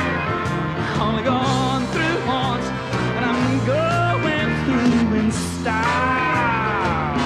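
Live country band music with a steady beat, a lead line sliding and bending between notes over the band.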